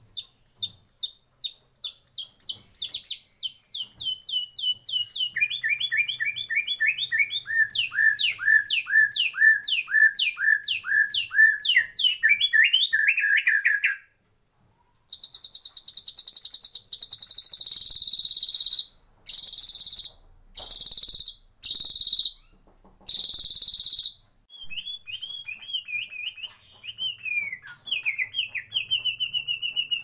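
White-rumped shama (murai batu) singing: a fast run of repeated whistled notes that steps down in pitch over the first half, a brief break, then several long buzzy notes, ending in quick varied warbling.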